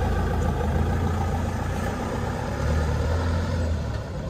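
Fiat Ducato camper van's diesel engine running as the van manoeuvres out of a parking space. It is a steady low engine note that grows louder for about a second a little past halfway, then eases near the end.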